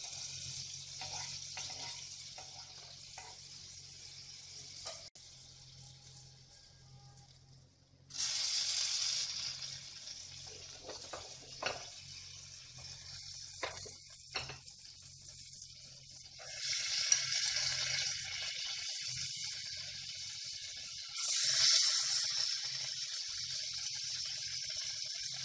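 Butter sizzling as it melts in a metal kadai, then paneer cubes frying in it. The sizzle swells several times as more cubes go into the pan, with a few soft knocks as pieces land.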